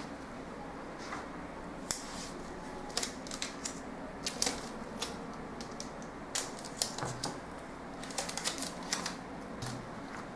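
Scattered light clicks and taps of paper pattern pieces being handled and pressed flat on a cutting mat, some coming in quick little clusters, over a faint steady background hum.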